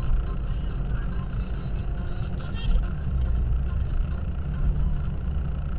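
Road and engine noise inside a moving car's cabin, a steady low rumble, picked up by a dash cam's built-in microphone.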